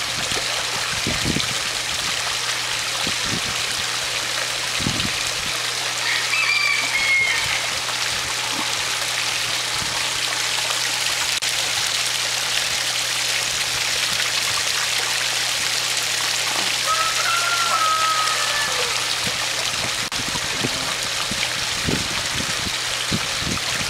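A steady rushing hiss like running water, over a low steady hum. Two brief falling whistle-like notes sound, one about seven seconds in and one about seventeen seconds in.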